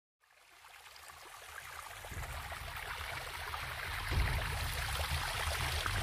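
Rushing water, a steady splashing rush that fades in from silence and grows louder, with a deeper rumble joining about four seconds in.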